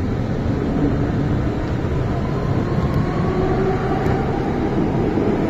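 MTR Island Line M-Train pulling out of an underground station behind platform screen doors: a steady rumble of wheels on rails with a faint rising motor whine as it picks up speed.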